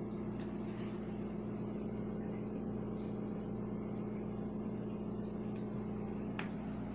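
Aquarium pump humming steadily with a low, even drone, and one light tick near the end.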